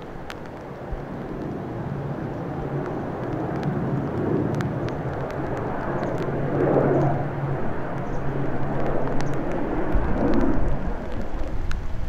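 ATR 72-600 twin turboprop climbing out overhead after take-off: a steady low propeller hum under a wide engine rush that swells through the middle and peaks near the end.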